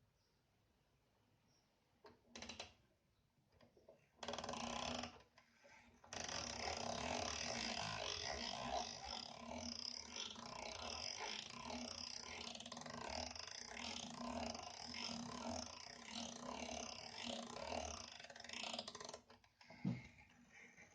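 Vienna regulator weight-driven clock being wound with its crank key: the winding drum's ratchet and gears click steadily for about thirteen seconds, after two short bursts, and then stop suddenly.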